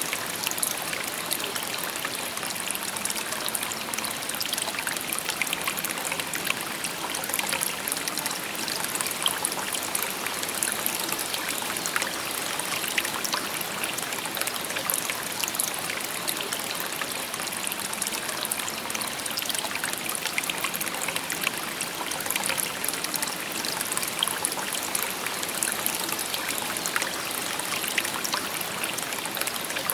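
Shallow stream babbling and trickling steadily over stones, an even wash of water with many small splashes.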